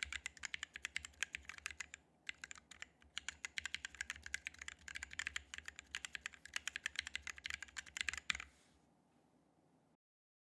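Typing test on a Planck 40% mechanical keyboard with lubed Halo True tactile switches and DSA PBT keycaps: fast, steady keystroke clicks with a short pause about two seconds in. The typing stops near the end.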